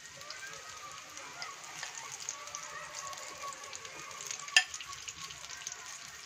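Spinach pakoras (gram-flour batter fritters) frying in hot oil in a frying pan: a steady sizzle full of small crackles as more batter is dropped in. One sharp click stands out about four and a half seconds in.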